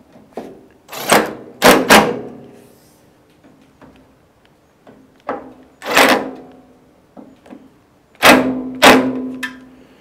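Hard knocks on the cabinet of a 1950 Ekco Thermovent electric heater, six in all in three groups, each leaving a short ringing.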